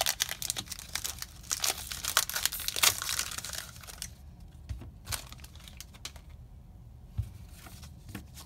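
A Magic: The Gathering booster pack's foil wrapper crinkling and tearing as it is ripped open by hand, loud and dense for about the first four seconds. After that come a few faint rustles as the stack of cards is slid out of the wrapper.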